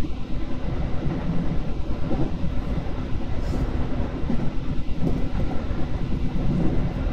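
Electric train running along the line, heard from on board: a steady low rumble of the wheels and running gear, with a few faint clicks.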